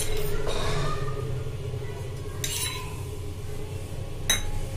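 Metal spoon clinking and scraping against a nonstick kadai while spreading melting ghee, with a few separate clinks and one sharp one near the end. A steady low hum runs underneath.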